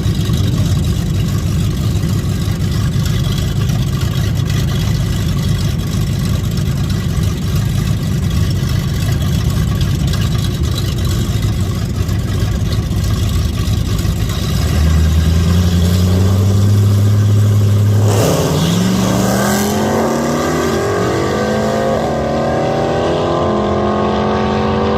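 Big-block 454 V8 of a 1982 Camaro drag car rumbling at low revs, then held at higher revs for a few seconds while staged. About eighteen seconds in it launches hard and climbs in pitch, dropping briefly at each gear change as it accelerates down the strip.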